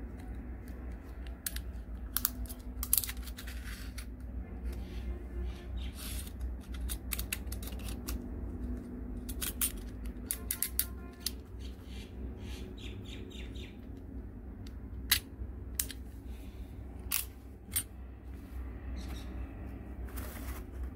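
Plastic and metal clicks and taps from handling an 18mm snap-off utility knife as its end cap is worked off and on, with a quick run of evenly spaced ratchet clicks about halfway through as the blade slider is pushed along its notches. A steady low rumble runs underneath.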